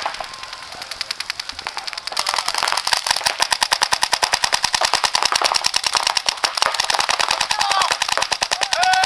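Paintball markers firing rapid, overlapping strings of shots, a fast clatter of pops that gets louder and denser about two seconds in.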